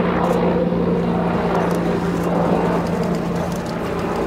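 Z-10 attack helicopter flying past: a steady rotor and engine noise with a constant low hum, a little louder in the first half.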